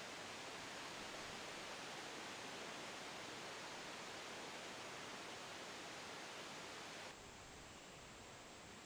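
Faint, steady hiss of ambient noise with no distinct sound in it; it drops slightly and changes abruptly about seven seconds in.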